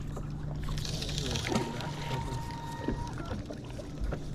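Bow-mounted electric trolling motor humming steadily on a small fishing boat, with light wind and water noise.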